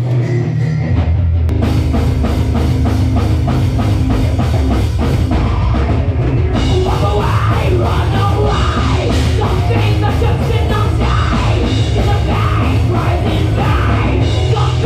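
Loud heavy metal band playing live, with dense drumming under heavy low bass and guitars. The sound turns fuller and brighter about a second and a half in.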